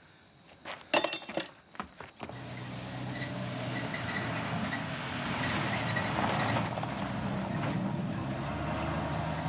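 Pickup truck engine running as the truck pulls away along a dirt lane. The engine comes in a couple of seconds in and grows louder, after a short clatter about a second in.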